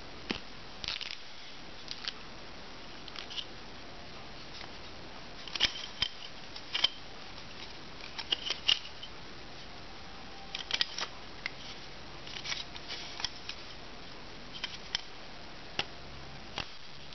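Hands picking and fiddling at a roll of clear tape to find its end: scattered short clicks and scrapes, some in quick little clusters, over a faint steady hiss.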